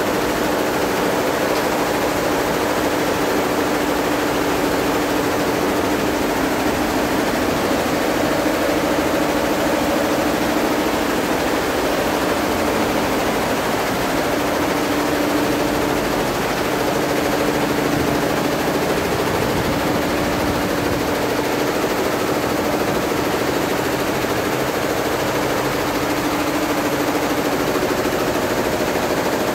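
Embroidery machine running steadily: a continuous mechanical whir with a low motor hum.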